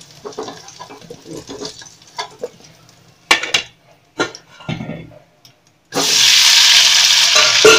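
A spoon clinks and scrapes in a pan of oil. After a brief gap, about six seconds in, hot oil starts sizzling loudly and steadily as gram-flour dumplings (gatte) fry in it.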